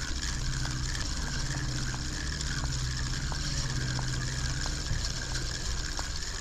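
Spinning reel being cranked to retrieve line: a steady gear whir with a light tick repeating about every two-thirds of a second, the whir stopping about five seconds in.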